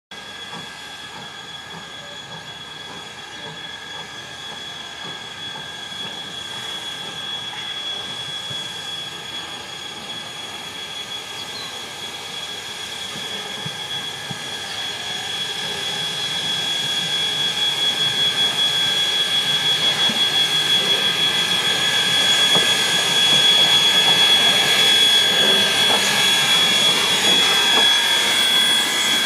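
Two coupled steam locomotives running light on narrow-gauge track, approaching and passing close by, growing steadily louder with a loudest stretch a little past the middle. A steady high-pitched tone sounds throughout over the rolling rumble.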